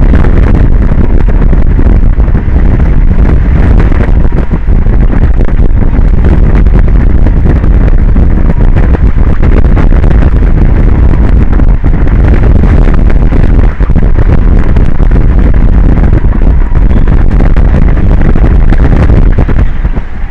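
Strong wind blowing across an exposed outdoor microphone: a loud, constant rumbling roar that holds near full scale throughout.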